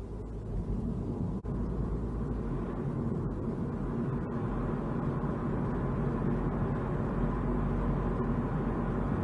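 Car driving: a steady rumble of road and engine noise that builds a little over the first second or two.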